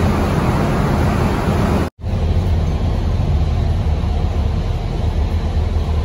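Cabin noise inside a moving public transit bus: engine and road noise as a loud, steady rumble with a deep low end. It cuts out for an instant about two seconds in, then resumes.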